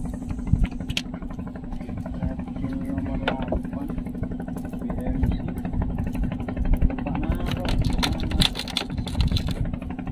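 A small wooden boat's engine running steadily: a low, even drone with a rapid rumble underneath. Scattered sharp clicks and knocks are heard throughout.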